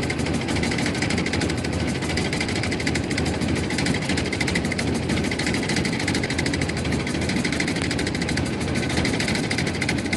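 Small motorboat's engine running steadily, heard from on board the boat.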